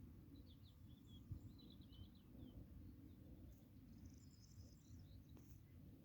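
Faint, quick bird chirps, a short twittering run in the first couple of seconds and another higher one a little past halfway, over a low steady rumble of outdoor background noise.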